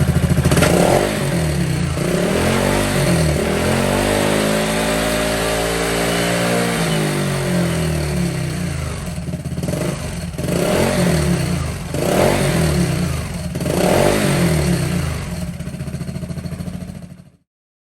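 Piaggio Beverly 350 scooter's single-cylinder four-stroke engine through a Malossi aftermarket exhaust, recorded close to the exhaust tip, with a deep note. It idles, then gives one long rev that rises, holds and falls, then four quick blips of the throttle. It settles back to idle before the sound cuts off abruptly near the end.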